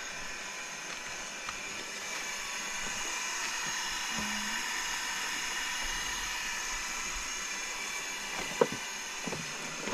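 A small motor running steadily, a whirring hiss with a high whine, with a couple of faint knocks near the end.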